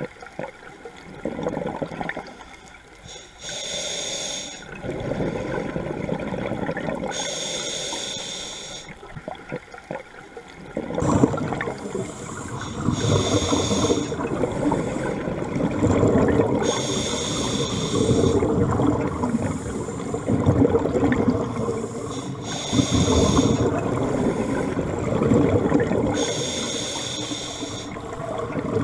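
Scuba regulator breathing underwater: a hissing inhale through the regulator roughly every four seconds, alternating with the low bubbling rush of exhaled air bubbles. The bubbling gets louder about eleven seconds in.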